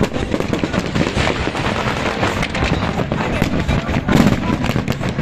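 A large fireworks display going off without pause: a dense, continuous run of bangs and crackles from many shells bursting at once, over a steady low rumble.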